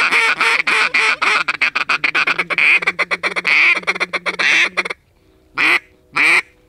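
Mallard duck call blown in a fast, rattling feeding chatter that stops about five seconds in, followed by two loud single quacks with short pauses between them.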